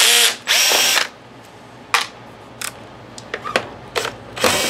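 Hands working the plastic bottom housing of a Sharp XV-Z2000 DLP projector. Two scraping rubs of about half a second each come in the first second and another comes near the end, with small clicks and snaps of the case and its clips in between.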